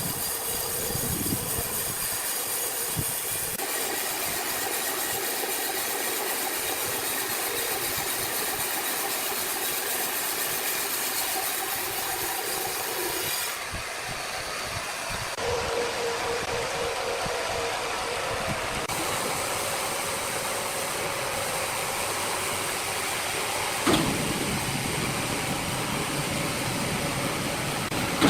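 Sawmill machinery running steadily, its tone changing abruptly several times as one machine gives way to another, with a sharp knock about two thirds of the way through.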